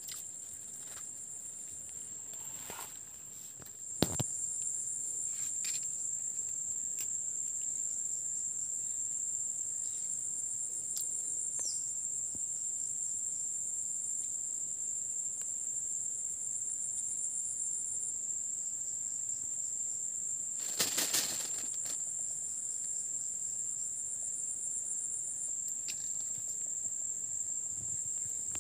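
Insects trilling steadily at a high pitch, with a faster pulsing trill layered just above. A sharp click about four seconds in and a brief noisy burst around twenty-one seconds.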